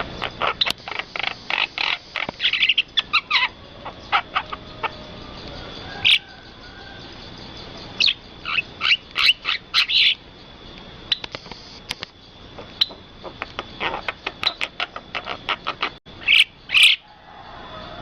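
Starling (jalak) calling in rapid runs of short, sharp chirps, in several bursts with short pauses between them.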